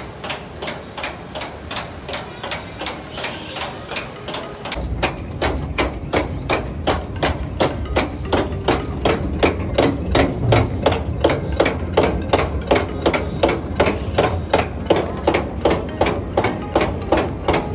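Lift conveyor of a log-flume boat ride clacking steadily, about two to three clacks a second, as it hauls the boat up the incline; the clacks grow louder about five seconds in, with a low rumble beneath.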